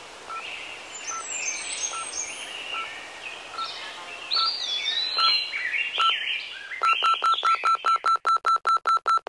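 Birds chirping over a short electronic beep repeating about every 0.8 seconds. About seven seconds in, the beeps speed up to about five a second, each with a sharp click, building tension.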